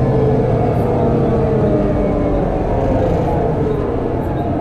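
Volvo B7TL double-decker bus's six-cylinder diesel engine and drivetrain running, heard from inside the lower deck, with a steady drone whose tone falls gradually over the first few seconds.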